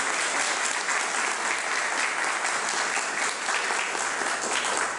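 Applause from a small group of people, many hands clapping in a dense, steady patter that thins out at the very end.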